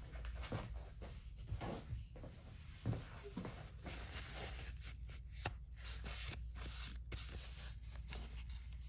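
Paper towel rustling and rubbing as it is crumpled and used for wiping, with a few soft knocks of things set down on the table.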